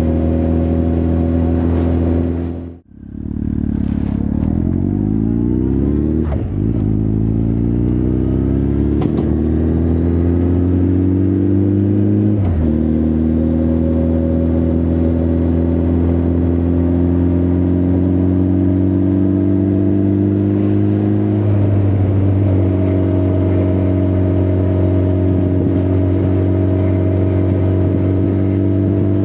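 Honda CB1300 Super Bol d'Or's inline-four engine and exhaust under way. The sound cuts out sharply for a moment about three seconds in. The engine then pulls up through the gears, its pitch rising and dropping at each of three upshifts, and settles into a steady cruise with the revs creeping slowly up.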